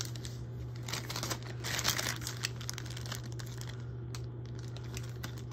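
Clear plastic bag crinkling with small clicks and taps as diamond-painting tools are handled and put back into it, busiest around two seconds in and dying away after about three seconds. A steady low electrical hum runs underneath.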